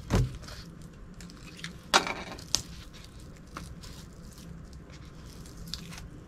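Handling noises from a rolled diamond-painting canvas and the tape holding it: a soft thump at the start, a sharp click about two seconds in, then a few fainter clicks and ticks.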